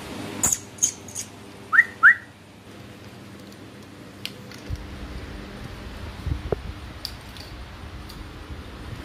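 Two short rising whistled notes in quick succession, a person whistling, after a few light clicks and taps. Faint scattered taps follow.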